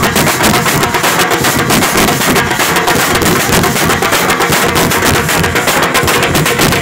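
Nasik dhol ensemble playing: several large barrel drums beaten with sticks in a fast, dense, continuous rhythm, with smaller tasha drums rattling over them.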